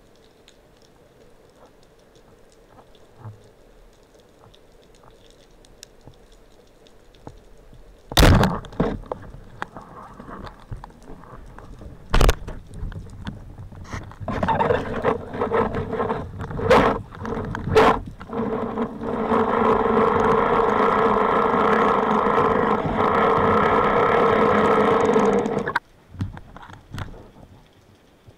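Underwater, a band-powered wooden speargun fires with a loud sharp thunk about eight seconds in, followed by another sharp knock a few seconds later. Then come clattering and scraping knocks against the camera housing, and a steady loud rushing noise for several seconds that cuts off suddenly near the end.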